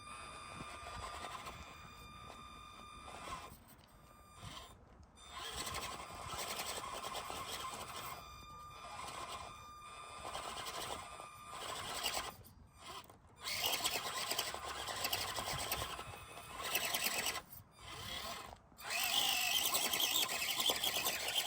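Small electric motor and drivetrain of an Axial SCX24 Deadbolt 1/24-scale RC crawler running in start-stop bursts, with several sudden cut-offs as the throttle is let off.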